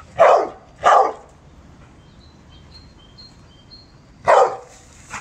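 A Staffordshire-type dog barking: two quick barks at the start, then a single bark about four seconds in.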